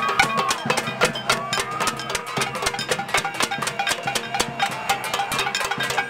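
A crowd banging pots, pans and other noisemakers: a dense, unbroken clatter of metal and wooden strikes at a fast, ragged rhythm.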